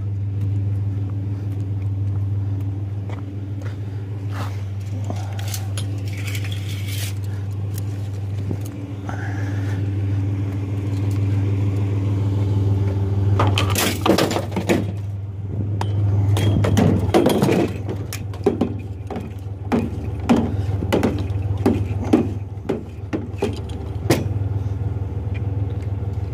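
Pickup truck engine idling steadily. About halfway through, metal clinks and clattering start as scrap is handled in the truck bed.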